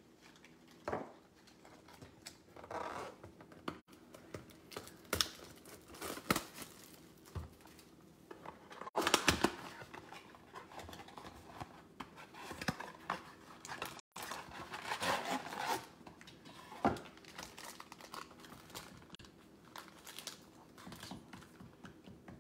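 Cardboard trading-card box being torn open, then its foil-wrapped card packs rustling and crinkling as they are handled, in scattered short bursts with clicks, the loudest about nine seconds in.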